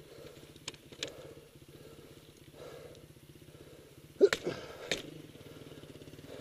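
Honda XR400's single-cylinder four-stroke engine idling steadily, with a couple of sharp clicks about a second in and a louder clatter of knocks around four to five seconds in.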